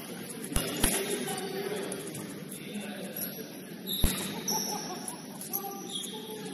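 A basketball bouncing on a hardwood gym floor: two thumps close together under a second in and another about four seconds in, with brief high sneaker squeaks and players' voices in a large, echoing gym.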